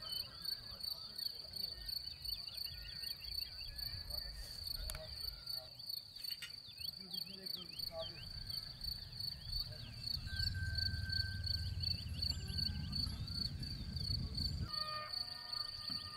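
Crickets chirring in a steady high trill, with small birds chirping in quick short calls over it. A low rumble comes in about ten seconds in and drops away near the end.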